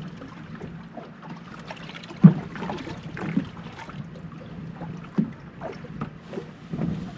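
Choppy water lapping and slapping against a boat's hull, over a steady low hum, with a sharper knock about two seconds in. The audio is heavily processed to cut wind noise.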